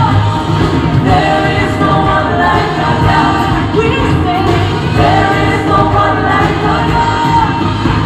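A recorded song with a singing voice played loud through a PA system of subwoofer cabinets and pole-mounted top speakers for a sound test, with strong bass.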